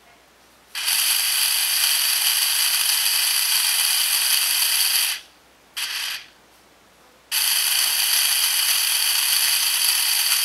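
Power drill running in three bursts, a high, even whirr: a long run of about four seconds, a half-second blip, then another long run that is still going at the end.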